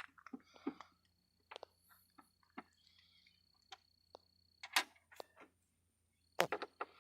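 Scattered clicks, light knocks and rustling of dry nest material being pulled out of a pickup truck's grille and air intake by hand, with a thin steady high whine in two stretches.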